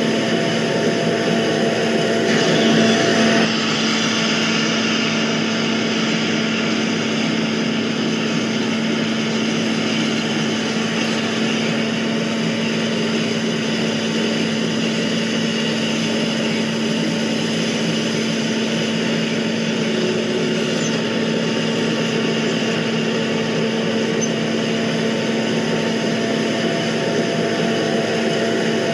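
Camera drone's propellers and motors running with a steady, even hum and hiss, briefly a little louder about two to three seconds in.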